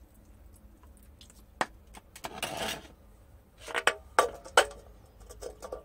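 Aluminium beer cans handled and set down on a tiled floor: a click, a brief noisy scrape, then three sharp metallic clinks with a short ring about a second apart, and a few lighter knocks near the end.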